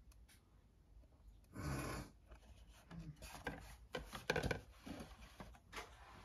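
Cardboard boxes being handled and set down on a countertop: a scraping rub about one and a half seconds in, then a run of light knocks and taps, the loudest a little after four seconds in.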